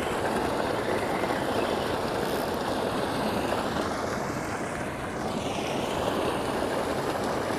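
Steady rush of water gushing from a large culvert pipe and splashing into the spillway pond.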